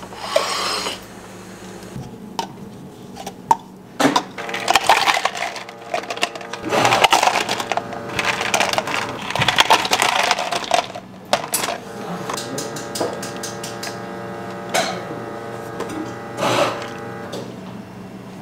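Ice cubes poured into clear plastic cups, clattering and clinking in several rushes over a few seconds, with sharp single knocks between them. A steady hum follows in the second half.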